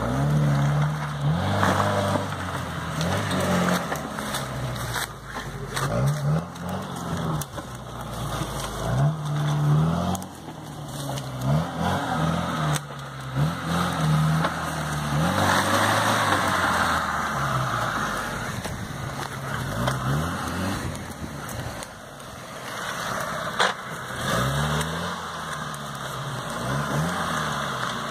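Suzuki Vitara's engine revving up and down again and again as it is driven off-road through mud, with stretches of hissy noise in between.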